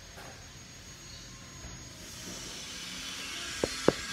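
Fabric of a knee pad rubbing and brushing against the phone's microphone as it is handled, a steady hiss. Near the end come three quick sharp ticks, about four a second.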